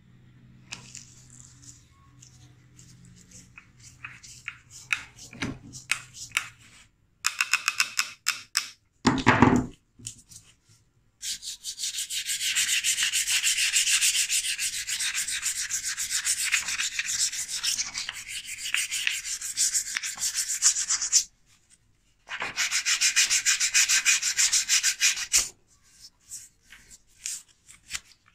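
Sandpaper rubbed by hand over a newly shaped rifle grip piece, in quick, even back-and-forth strokes. The sanding comes in two long runs split by a short pause, and more strokes start near the end. Before it there are a few seconds of light clicks and one loud knock.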